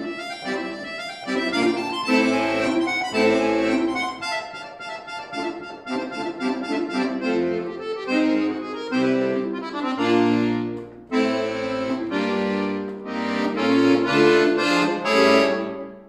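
Piano accordion (a Scandalli) played solo: fast note runs and loud, accented chords, with a brief break about eleven seconds in.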